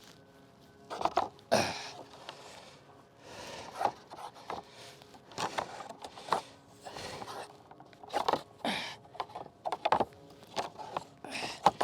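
Irregular scrapes, knocks and clicks of rope and block-and-tackle rigging being handled and tightened to take up slack.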